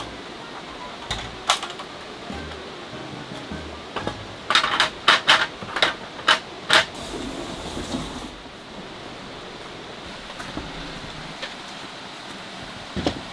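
A series of sharp clicks and knocks of objects being handled, with a quick cluster of loud ones about four to seven seconds in, over a steady hiss.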